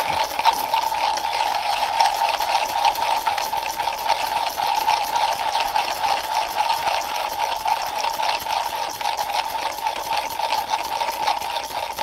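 Comandante C40 hand coffee grinder being cranked, coffee beans crunching steadily and rapidly between the burrs, set to 13 clicks for a finer grind.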